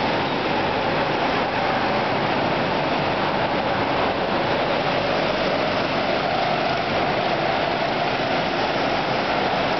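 Hire go-kart driving at speed, heard from onboard: a steady, loud drone of engine and rushing air, its pitch drifting slightly up and down.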